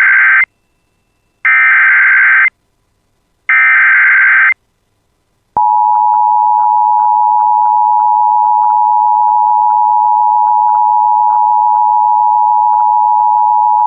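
Emergency Alert System SAME header: one-second bursts of shrill, warbling digital data tones with gaps of silence between them. About five and a half seconds in, a long steady attention tone starts, with faint crackling over it. Together they signal the start of an emergency alert.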